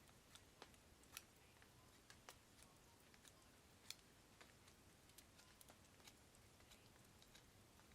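Near silence, with faint, irregular ticks and crackles scattered through it and two slightly louder clicks about a second and four seconds in.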